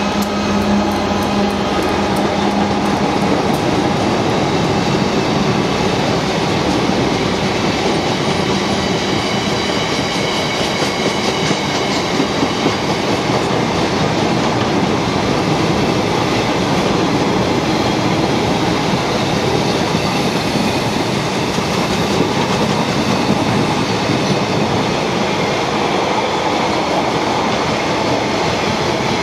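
Freight train of Hanson aggregate hopper wagons rolling past close by: a loud, steady rumble and clatter of wheels on the rails. The engine tone of the Class 59 diesel locomotive fades away in the first few seconds.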